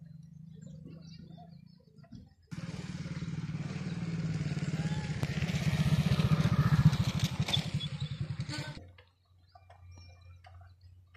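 A motorcycle engine running close by. It comes in suddenly about two and a half seconds in, grows louder, then cuts off sharply about nine seconds in. Faint bird chirps sound before and after it.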